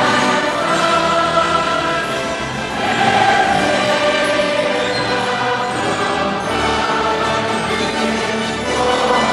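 Music: a choir singing long held chords.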